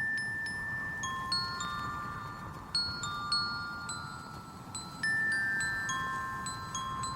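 Intro music of slow chime or glockenspiel-like notes, struck one after another and each left ringing for a second or more.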